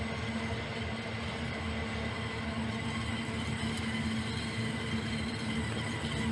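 Train passing on the railway line: a steady running noise with a constant low hum, unchanging throughout.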